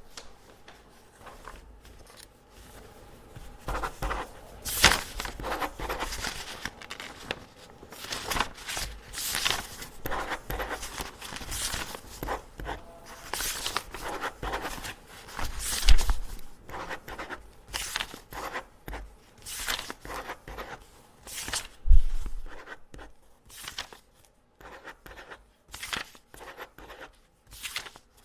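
Pen marking test papers: quick, uneven scratching strokes across paper, mixed with sheets being handled. Two heavier thumps come a little past halfway and again about six seconds later.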